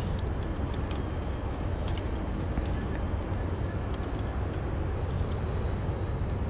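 Steady low rumble of wind and city noise high on a building's facade, with scattered light clicks from the rope-access gear and squeegee.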